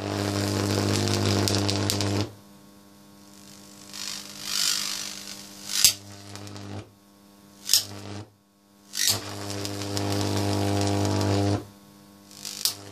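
High-voltage arc from two series potential transformers ballasted with microwave oven transformers, buzzing loudly with a low mains hum while it burns. It goes out several times and re-strikes with sharp snaps, burning for a couple of seconds each time.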